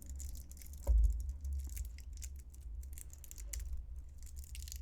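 Fingers picking at the plastic shrink-wrap on a tarot deck, a run of small crinkles and clicks, with low handling bumps, the loudest about a second in.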